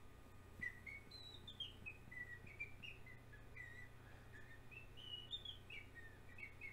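A faint run of short, high whistled notes that step down and back up in pitch, over a low steady hum.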